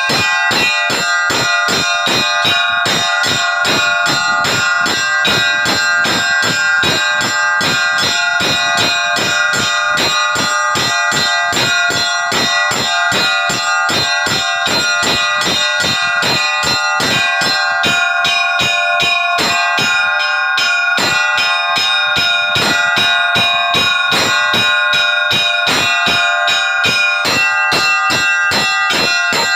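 Orthodox church bells rung by hand to call the faithful to a service. Several bells are struck together in a fast, even rhythm of about three strokes a second. The combination of bells changes about two-thirds of the way through and again near the end.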